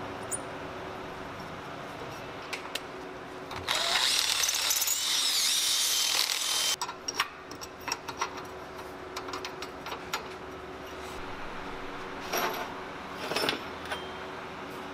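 Power drill boring into a cast bronze skate truck hanger held in a vise: a loud, high-pitched cutting noise that starts about four seconds in and stops abruptly about three seconds later. A few light metallic clicks follow near the end.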